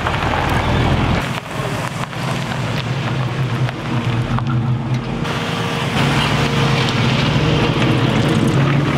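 Classic Chevrolet C10 pickup engines running at low speed as the trucks roll slowly past on gravel, one after another. The sound changes abruptly as one truck gives way to the next, about a second in and again about five seconds in.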